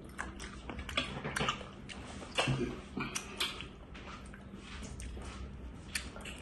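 A person chewing food close to the microphone: wet mouth clicks and lip smacks, with a short louder noise about two and a half seconds in.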